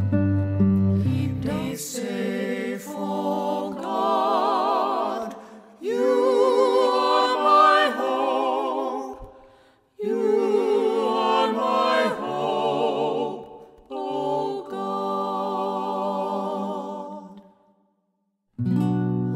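Hymn singing with vibrato, mostly unaccompanied, in phrases separated by short breaks; a low accompaniment stops about two seconds in.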